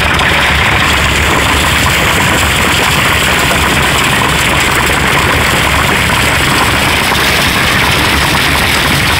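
Dense, unbroken hail hitting the body of a Toyota pickup truck, heard loud from inside the cab, over the steady low hum of the truck's idling engine.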